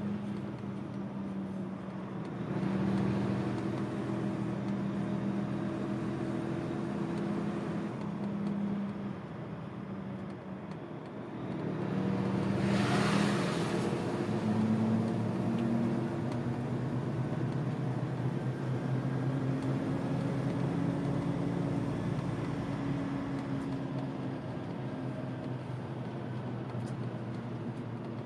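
Truck's diesel engine running at low speed, heard from inside the cab, its pitch rising and falling a little. A brief hiss about halfway through.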